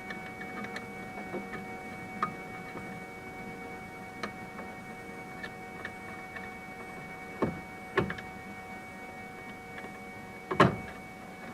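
Steady hum of several fixed tones from the idling Flashforge Adventurer 3 3D printer. A few sharp handling knocks and clicks come over it, the loudest near the end.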